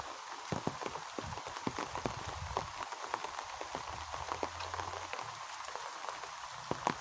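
Rain falling, a steady hiss with many separate drops ticking irregularly on nearby surfaces.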